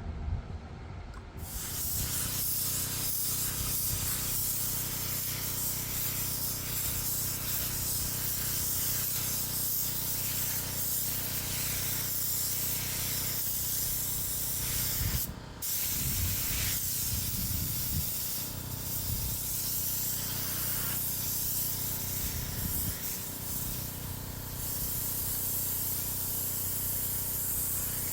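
Paint spray gun hissing steadily as it lays clear coat on a car bumper. It starts about a second in and stops briefly once about halfway through. A steady low hum runs underneath.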